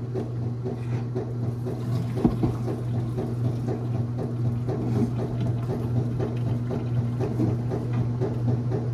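Hot water being poured from a pot of boiled potatoes through the pot's strainer lid into a sink, with an irregular splashing and gurgling, over a steady low hum.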